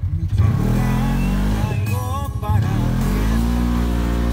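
Polaris RZR side-by-side's engine running under acceleration, heard from on board. Its pitch climbs twice: just after the start and again about three seconds in.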